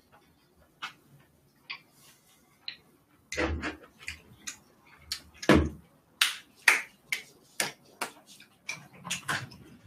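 Close-miked eating sounds: irregular wet smacks and sharp clicks of chewing galbi with noodles, busier after about three seconds, with a couple of low thuds.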